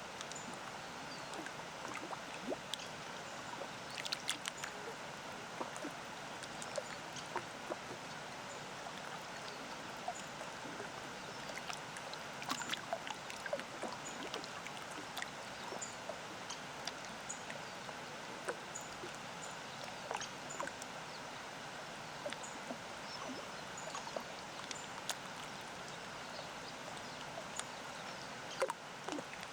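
Small lake waves lapping at the shore in close, irregular little splashes and clicks, over a steady rush of a distant waterfall. Faint high bird chirps come through now and then.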